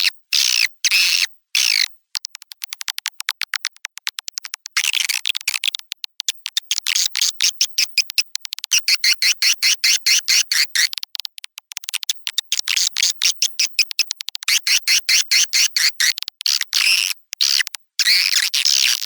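Edited swiftlet call recording of the kind played to lure swiftlets into a nesting house: fast trains of high-pitched clicks and chirps, chopped by brief silences. Twittering calls that sweep up and down in pitch come in near the start, in the middle and near the end.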